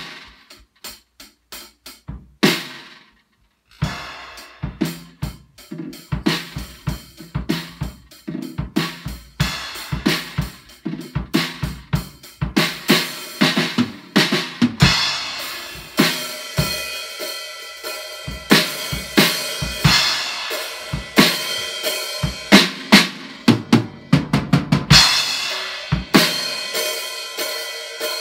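Acoustic drum kit played roughly by an amateur: a few scattered hits at first, then a busy beat of bass drum and snare. Crashing cymbals wash over it about halfway through and again near the end.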